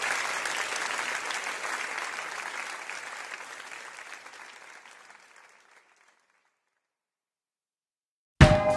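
Congregation applauding, fading away over about five seconds to silence. Music with drum beats starts abruptly near the end.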